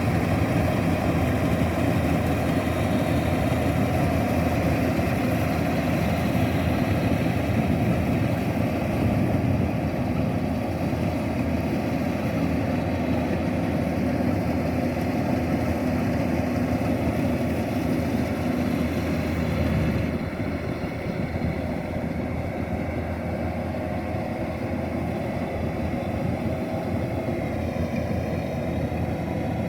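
Kubota rice combine harvester's diesel engine and threshing machinery running steadily under load. The level drops slightly about twenty seconds in.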